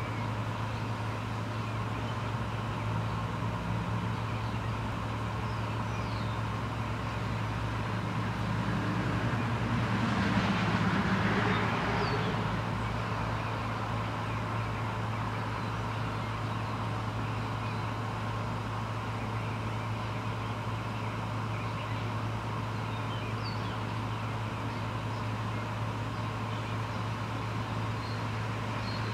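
Steady background hum of distant traffic, with a vehicle passing that swells and fades about ten to twelve seconds in. A few faint, short bird chirps.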